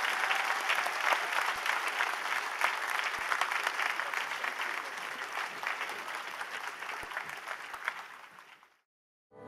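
Audience applauding, a dense patter of many hands clapping that fades away over the last couple of seconds and stops shortly before the end.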